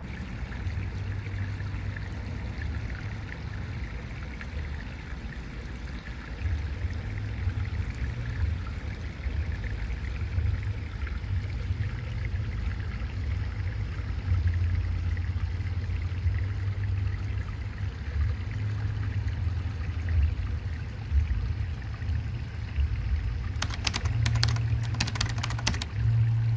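Light rain pattering steadily, with a low, uneven wind rumble on the microphone. A short run of sharp clicks comes near the end.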